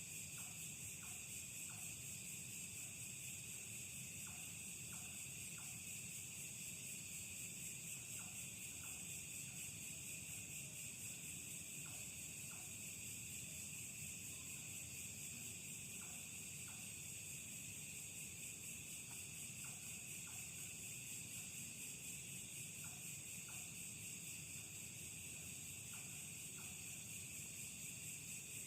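Night insect chorus: a steady high-pitched shrill that does not let up, with faint short calls in twos and threes every few seconds.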